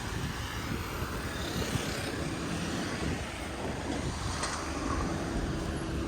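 Road traffic at a railroad crossing, a steady low rumble of passing vehicles with some wind on the microphone. A faint steady hum joins in about four and a half seconds in.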